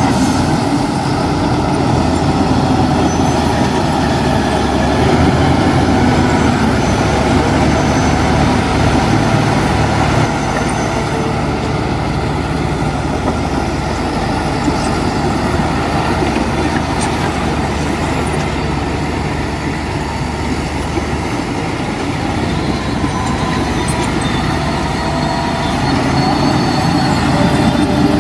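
Heavy diesel earthmoving machinery running steadily, a loud continuous engine drone.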